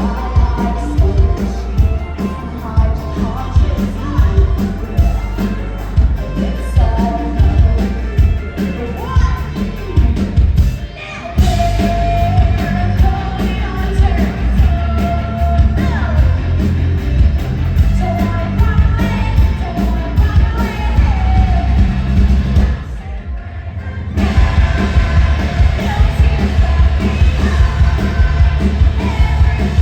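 Rock band playing live: sung vocals over loud drums, bass and electric guitars. The band cuts out for a moment about eleven seconds in, and the music drops to a quieter passage briefly near two-thirds of the way through.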